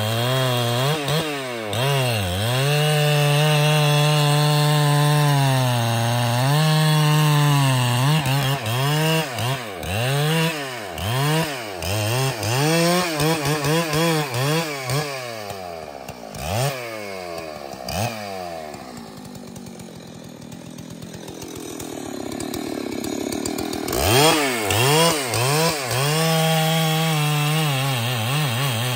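Large Husqvarna two-stroke chainsaw running at high revs in a tree-felling cut. Through the middle the engine speed repeatedly dips and recovers. About 19 seconds in it drops to a low, quieter run, then revs back up to full speed about five seconds later.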